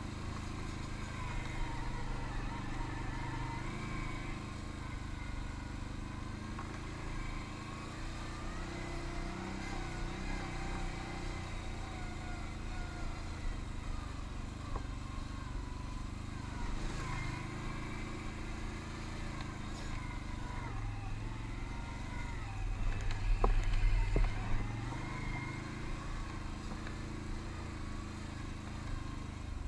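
ATV engine running under way, its pitch rising and falling with the throttle. About 23 seconds in there is a louder surge of low rumble.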